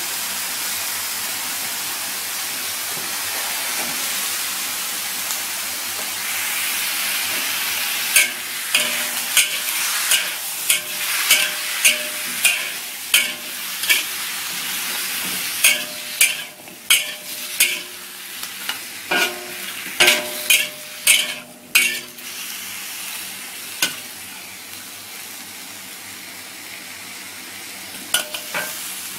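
Chicken wings, potato and carrot sizzling in a wok, stir-fried with a metal ladle. From about eight seconds in to about twenty-two seconds the ladle scrapes and strikes the wok many times in quick succession, some strikes leaving a short ring. After that the sizzle goes on more quietly, with a few more clinks near the end.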